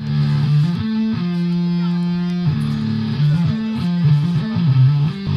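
Live electric guitars played through amplifiers in a rock riff. A low note is held for more than a second, about a second in, and is followed by a run of quicker changing notes.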